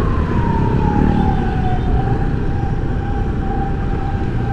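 Emergency vehicle siren wailing, its pitch falling slowly through the first two seconds and then holding steady, over steady traffic rumble.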